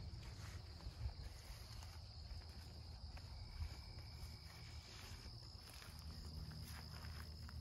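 Faint, steady high-pitched trilling of crickets in the grass, over a low rumble, with a few soft footsteps on grass.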